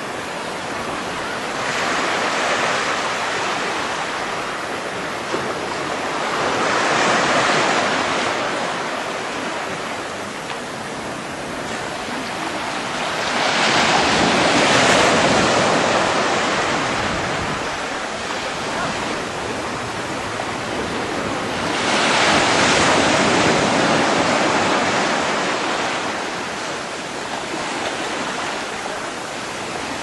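Small sea waves breaking and washing up a beach, the surf swelling louder every several seconds as each wave comes in.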